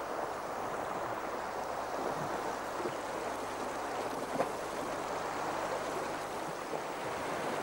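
Shallow rocky mountain stream rushing steadily over stones as reindeer wade across, with one short knock about four and a half seconds in.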